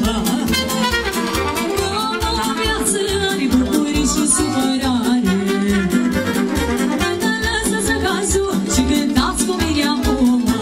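Live band playing Romanian folk dance music: fiddle and brass over a steady pulsing bass beat, with a woman singing.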